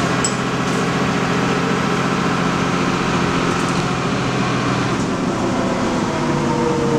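Interior drone of a 1997 Nova Bus LFS city bus under way: a steady engine and drivetrain hum over road noise. Near the end a whine slowly falls in pitch.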